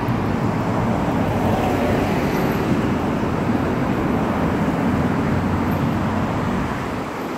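Steady road traffic noise from cars passing on a busy street, dropping a little in level near the end.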